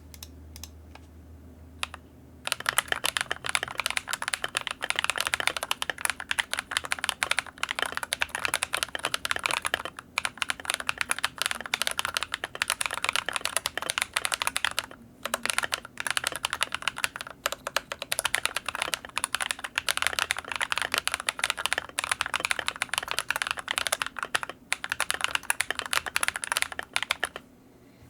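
Rapid, continuous typing on a GMMK TKL mechanical keyboard with Leobog Graywood v3 switches in a steel plate and ASA-profile keycaps. The keys start clattering about two and a half seconds in, after a quiet start with a low hum, and stop just before the end, with a few short pauses along the way.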